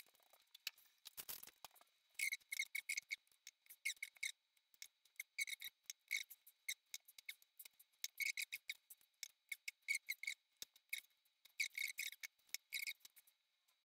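Quick runs of light, sharp clicks, several a second, separated by short pauses.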